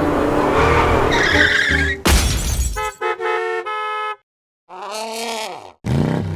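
Cartoon soundtrack of music and sound effects: a sudden burst of noise about two seconds in, a short run of held tones, a moment of silence, then a falling glide.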